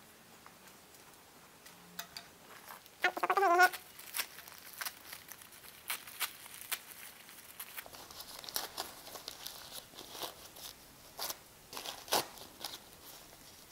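Newspaper wrapping and polyester stuffing being crinkled, torn and pulled off a potted plant by hand: a string of sharp paper rustles and crackles. About three seconds in, a brief wavering pitched call is the loudest sound.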